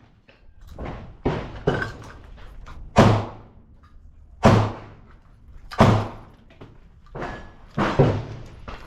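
Gunshots: about eight sharp reports spaced unevenly, each with a short ringing tail, the loudest three coming about a second and a half apart in the middle.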